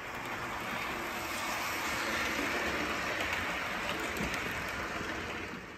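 Model railway train running past on a layout: a steady rolling rumble and rattle that fades in, swells through the middle and fades away near the end.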